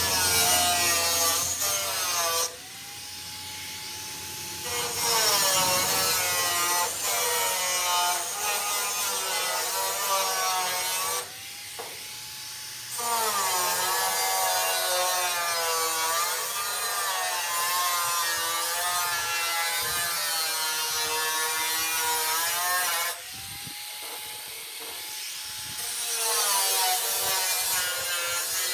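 Angle grinder with a cut-off disc cutting a curve in sheet steel: a loud grinding whine whose pitch wavers as the disc works through the metal. Three times the disc comes out of the cut and the motor drops to a quieter, steady whine before biting in again.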